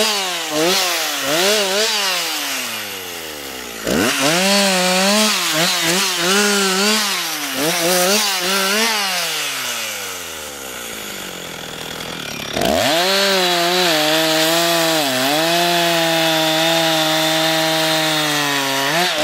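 Husqvarna 357 XP two-stroke chainsaw revving up and down in short bursts as it cuts branches off a felled tree. It drops back to idle for a few seconds, then is held at full throttle through a long steady cut across the trunk.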